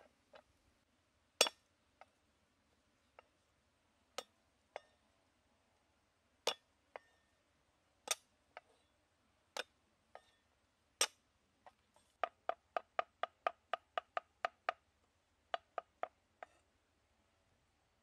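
Sharp clinks and knocks of hard kitchen objects striking each other, single strikes a second or so apart, each with a short ring. About twelve seconds in they speed up into a quick run of about a dozen strikes at roughly four a second, then a few more single ones follow.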